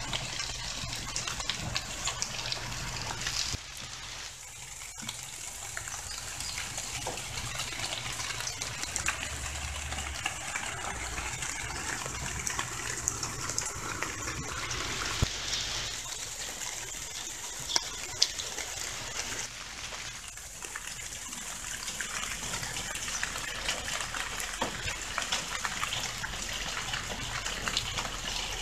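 Water trickling and splashing steadily into a small garden pond, with many small drips through it.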